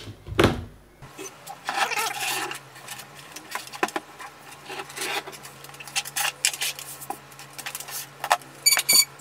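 Handling noises on a cluttered electronics workbench: irregular knocks, clicks and rustling as objects are moved and a tape-wrapped parcel is set down, with a cluster of sharp clicks near the end, over a steady low hum.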